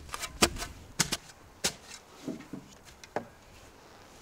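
Spade blade chopping into lawn turf: a series of sharp, irregular strikes in the first couple of seconds and one more just past three seconds, with quieter gaps between.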